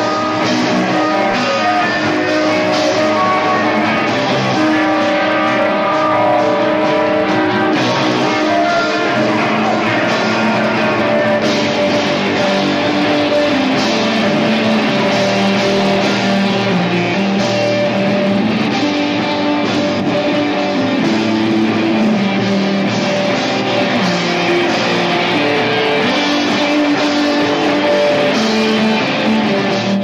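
Live rock music from an electric guitar played through an amp, with a drum kit, sounding steadily with held, ringing guitar notes.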